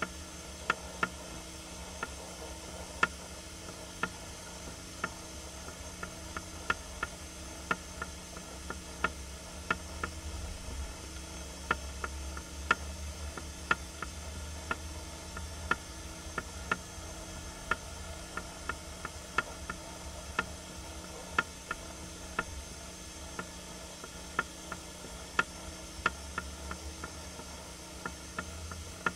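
Sharp, short ticks at irregular intervals, roughly one to two a second, over a steady low hum and faint hiss.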